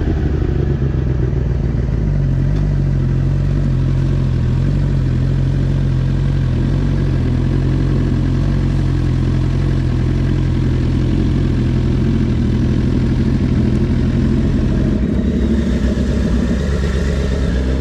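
Car engine and road noise at a steady cruise, the engine note holding one pitch without revving up. About fifteen seconds in the sound turns brighter and hissier.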